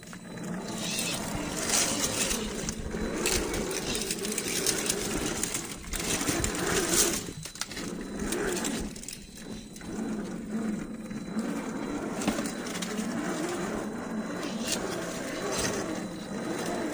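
Small RC rock crawler's brushed electric motor and geared drivetrain whirring, rising and falling with the throttle, with scattered crackles and crunches from the tyres and chassis working over rough ground.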